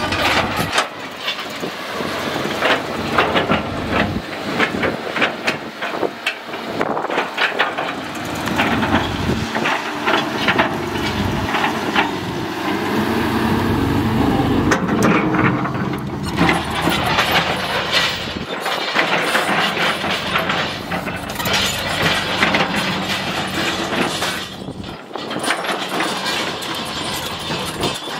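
CAT 320C hydraulic excavator working: its diesel engine runs steadily under a continual clatter of metal knocks and rattles from the tracks, bucket and stones.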